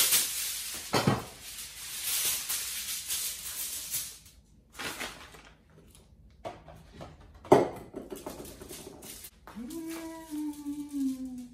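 Kitchen food-preparation sounds: a hiss for about four seconds, then a few sharp knocks, the loudest about 7.5 seconds in. Near the end a short hummed tone rises, holds and falls.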